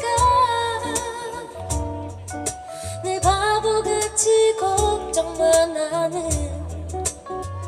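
Live ballad: a woman singing lead over a strummed steel-string acoustic guitar.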